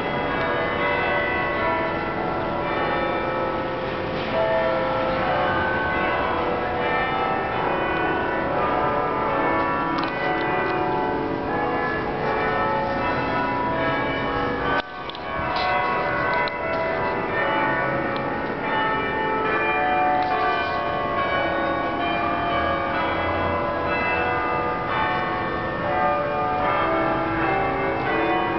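Bells ringing continuously, many overlapping tones like a peal of church bells, with a brief dip in level about fifteen seconds in.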